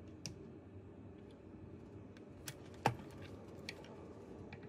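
Scattered light clicks and taps of hands and small tools working on a DJI Mini 4 Pro drone while its rubber gimbal dampers are pulled into place, with one sharper knock just under three seconds in, over a low steady background hum.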